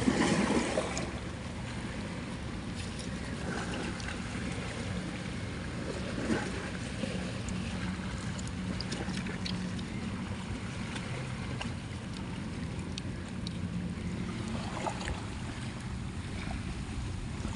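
Steady low drone of a motor with a faint hum, over which a hand gropes through wet mud and broken shells for clams, making short squelches and shell clicks, loudest right at the start.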